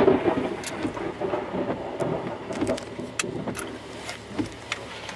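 Wind and rain noise on a car under a severe thunderstorm, heard from inside, with irregular sharp taps scattered throughout.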